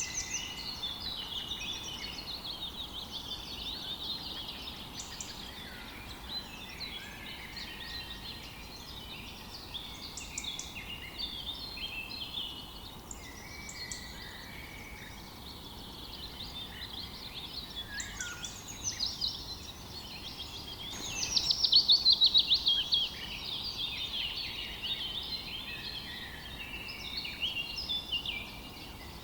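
Songbirds chirping and singing together, many short overlapping calls and trills. A loud, fast trill of rapidly repeated notes stands out about three quarters of the way through.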